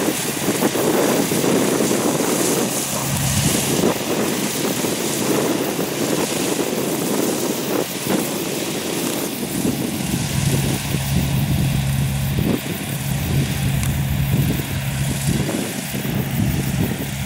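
Rice combine harvester at work in the field, its engine and threshing gear a steady drone with a low hum that grows stronger about ten seconds in.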